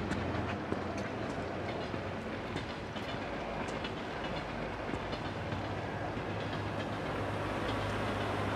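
Steady low rumble of outdoor background noise, with scattered light clicks and taps.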